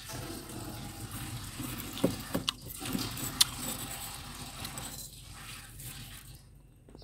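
Metal spoon scraping and scooping through soft, flaky freezer frost, a steady crunchy rasp with a few sharp clicks about two and three seconds in, dying down near the end.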